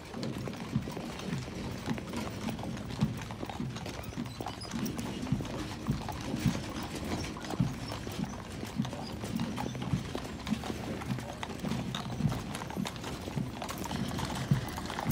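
Horses' hooves clip-clopping on pavement, a steady run of uneven clops from the team drawing a military caisson.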